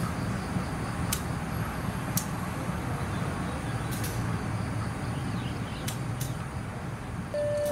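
Diesel locomotive's engine running with a steady low rumble as it hauls a train slowly past, with a few sharp clicks along the way. A train horn starts sounding near the end.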